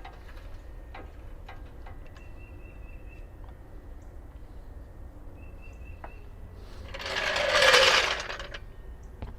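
Vehicle jack being lowered under a Ford Expedition: light clicks and a faint rhythmic mechanical whirr, then a loud rushing noise that swells and fades about seven seconds in.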